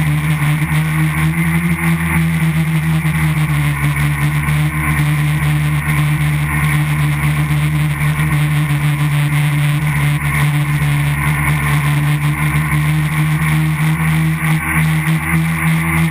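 A tricopter's three brushless motors and propellers running in flight, heard close up from a camera on the airframe: a loud, steady hum and whine whose pitch holds nearly level.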